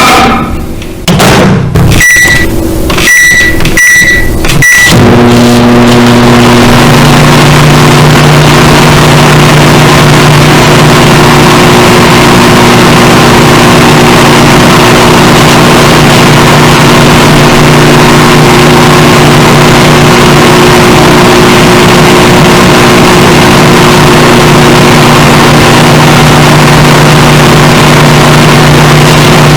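Microwave oven, played heavily amplified and distorted: four short high keypad beeps, then the oven running with a loud, steady hum.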